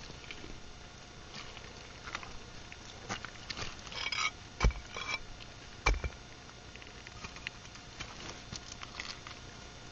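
Scattered light clicks and scrapes, with two sharp knocks a little over a second apart near the middle.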